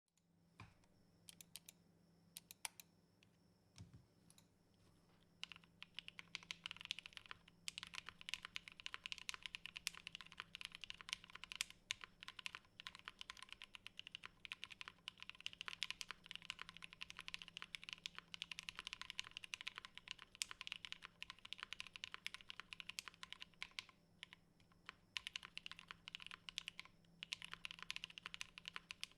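Typing on a Tofu60 mechanical keyboard with lubed, broken-in NovelKeys Cream linear switches on a polycarbonate plate, under GMK keycaps. A few separate keystrokes come first, then steady fast typing from about five seconds in, with a short pause near the end.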